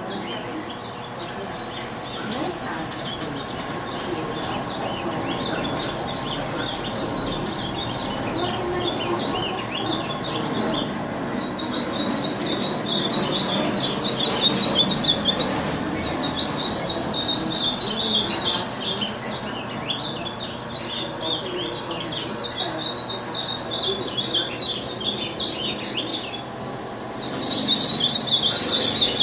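Three pet songbirds singing together in fast, chattering runs of high chirps that swell into loud bursts with shorter lulls between them.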